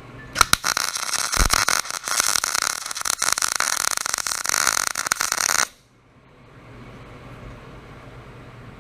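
Arc welding on a steel gusset: a loud, steady crackle that starts with a couple of sharp pops, lasts about five seconds and cuts off suddenly when the arc is broken, leaving a faint hum.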